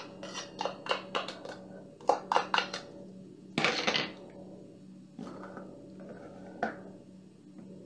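A spoon tapping and scraping against a small plastic container to knock crushed garlic into a glass bowl: a quick run of light clicks. About three and a half seconds in comes a louder clatter as the container is set down on the counter, then a couple of softer knocks.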